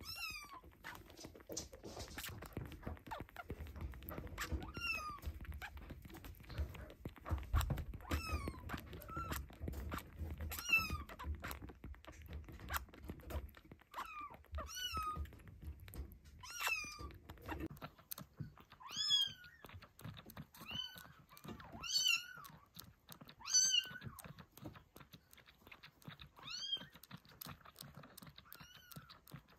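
Baby kittens mewing: short, high cries that rise and fall, every second or two and more often in the second half, over frequent clicks and bumps.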